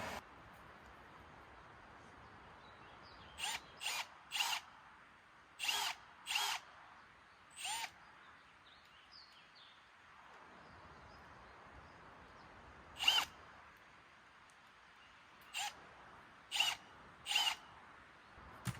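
Power drill run in about ten short trigger bursts, each spinning up briefly. The bursts come in two groups: six in quick succession, then, after a pause, four more.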